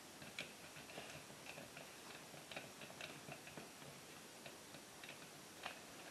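Faint, irregular small clicks and ticks from hands working a screwdriver and stiff copper wires at the terminals of a wall outlet, as the hot wires are seated and the terminal screws snugged down.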